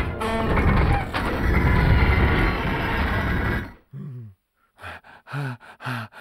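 Cartoon sound effects: a loud, dense crashing and clattering for about three and a half seconds that cuts off suddenly. Then a cartoon cat pants hard, about two short gasping breaths a second, each falling in pitch.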